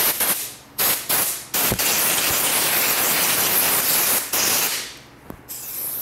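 Compressed-air blow gun hissing in blasts as it blows dust, hair and threads out of the underside of an industrial sewing machine: two short blasts, then one long blast of about two and a half seconds that stops just over four seconds in.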